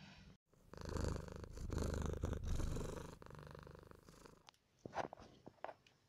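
A cat purring close to the microphone, a steady, fast-pulsed rumble for about four seconds. Near the end come a few sharp crackles of plastic bubble wrap under a kitten.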